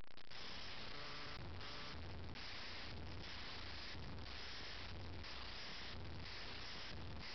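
Soft, low snoring, a rough breath sound swelling about once a second, faint under a steady hiss.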